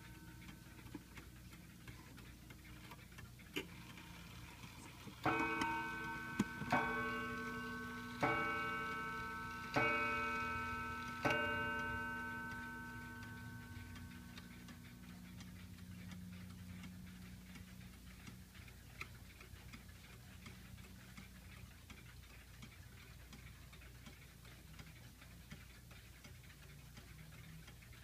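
Seth Thomas wind-up mantel clock ticking steadily, then striking the hour: a single click about three and a half seconds in, then five ringing strikes about a second and a half apart, each dying away slowly, counting out five o'clock.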